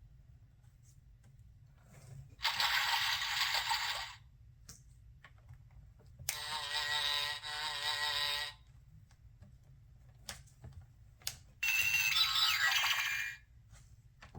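An electronic sound module in a children's button sound book playing three short sound clips through its small speaker, each lasting about two seconds, with faint clicks in the pauses between them.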